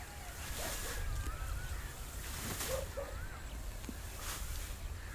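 Dry wheat straw rustling as it is scooped by hand into woven sacks, three short swishes a second or two apart. Birds warble throughout over a low steady rumble.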